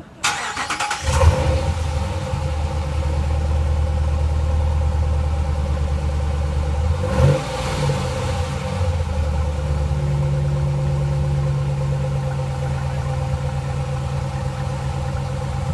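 2014 Ram 1500's 5.7-litre Hemi V8 running, heard at its dual exhaust tips. It is revved briefly about a second in and again around seven seconds in, and otherwise idles steadily.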